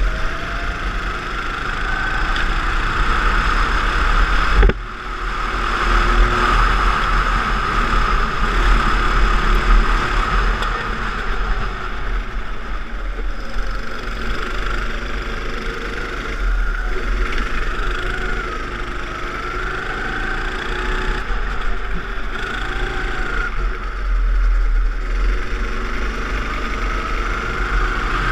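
Go-kart engine running hard, its pitch rising and falling as the throttle opens and closes through the corners, with steady wind rumble on the microphone. The sound briefly drops out about five seconds in.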